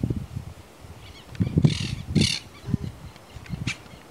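Two harsh, raspy bird calls in quick succession about one and a half seconds in, over low irregular rumbles on the microphone.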